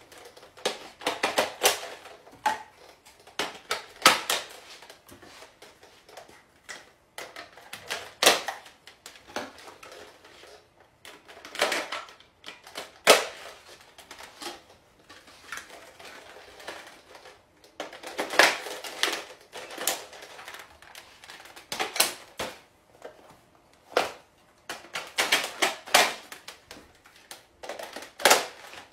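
Hard plastic clicking and clacking of a NERF blaster being handled, its parts and attachments knocking and snapping in uneven bunches, with a few louder sharp clacks between quieter stretches.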